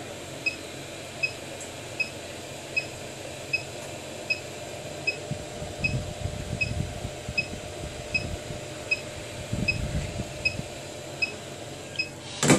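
Hot-air gun blowing steadily, warming the double-sided adhesive on a phone touchscreen. A short high beep repeats about once every three-quarters of a second throughout, and low handling rumbles come in the middle.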